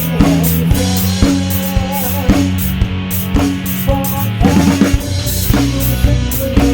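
A band playing an instrumental passage of a song: a drum kit keeps a steady beat under a guitar melody line, with no singing.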